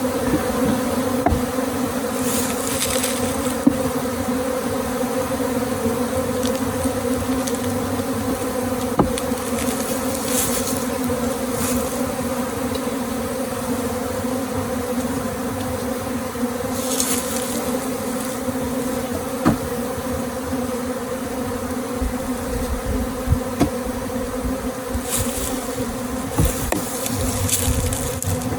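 A large swarm of honey bees buzzing in a steady, dense hum, with a few brief rustling noises now and then.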